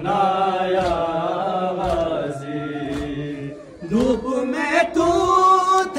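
Group of men chanting an Urdu noha (Shia lament) in unison, with drawn-out sung lines and hand slaps on the chest (matam) about once a second. A new phrase starts just before four seconds in with a rising voice.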